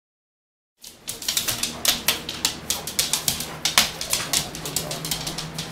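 Dogs' claws clicking rapidly and irregularly on a wooden floor as excited dogs move about, starting about a second in, over a faint low hum.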